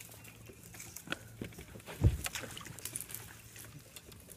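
Knocks and clicks of people and fishing gear moving in a bass boat while a hooked fish is brought to the side, with one heavy thump about two seconds in over a faint steady low hum.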